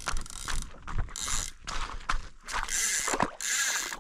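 Fishing reel ratcheting in several short bursts of clicking while a hooked fish, which the angler takes for a small carp, is being played.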